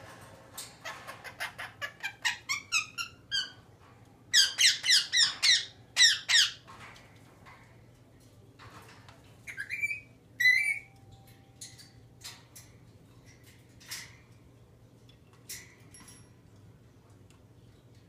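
Rose-breasted cockatoo (galah) squawking: a quick string of short, rising calls, then a run of about six loud squawks about four seconds in, and two more calls near ten seconds. A few single clicks follow in the second half.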